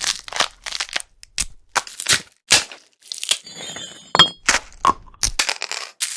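A rapid sequence of short organic user-interface sound effects: dry clicks, taps and crunches, about two a second, with glassy clinks. Around the middle one longer crackling crunch carries a few ringing tones.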